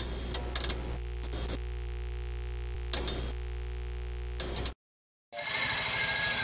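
Logo intro sound effect: a steady low drone with a handful of short, bright clicking hits. It cuts off suddenly near the end, and faint background noise follows.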